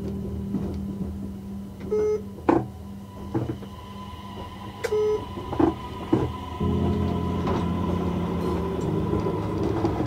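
Train running on the rails, its wheels clacking sharply several times as it passes over points and rail joints, over a steady running hum. About two-thirds of the way through, sustained organ-like music chords come in.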